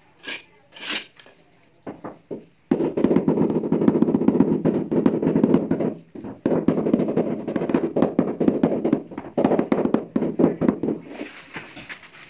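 A couple of sharp taps on ceramic floor tile, then a hand tool scraping wet mortar along the edge of freshly laid tile in a long, gritty scrape that breaks off briefly around six seconds and resumes. Near the end it turns into a lighter, hissier rubbing.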